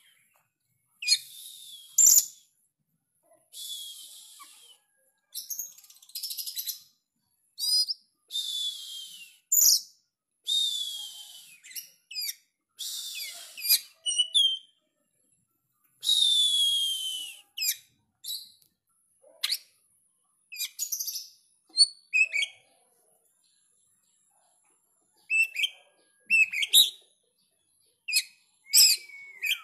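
Oriental magpie-robin in full song: short phrases of scratchy, hissing notes mixed with sharp whistles that slide downward, separated by brief pauses, with a longer silence about three-quarters of the way through.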